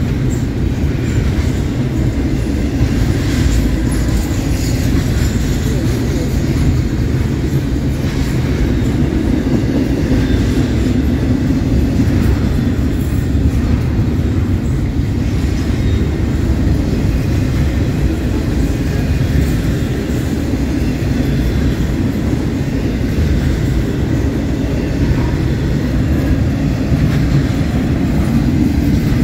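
Double-stack intermodal well cars rolling past at close range: a steady, loud noise of steel wheels on rail, weighted low, with faint clicks from the wheels.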